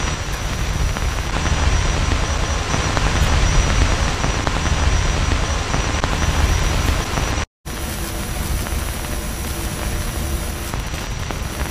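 Loud static noise with a heavy low rumble and a faint steady high whine. It cuts out for a moment about seven and a half seconds in, then resumes.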